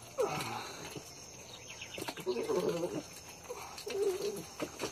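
A wet young dog giving three short, low whines while it is being scrubbed. The first, about a quarter second in, is the loudest and falls in pitch.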